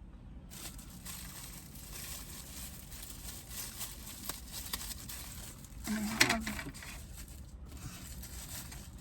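Food packaging crinkling and rustling as it is handled, with one louder moment about six seconds in.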